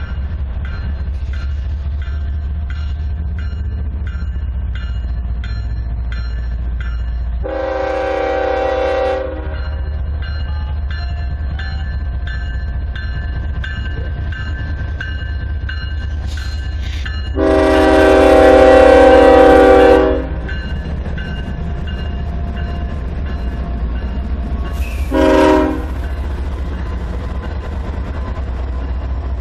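Norfolk Southern diesel locomotive's multi-chime air horn sounding three blasts, a medium one, a long loud one, then a short one, over the steady rumble of the passing freight train. Regular wheel clicks over the rails are heard in the first several seconds.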